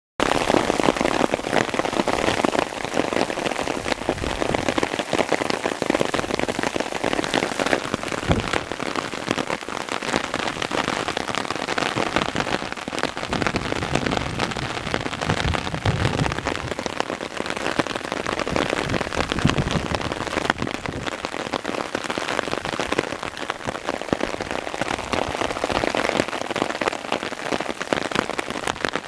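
Hailstorm: hail and rain falling in a dense, steady patter of countless small hits.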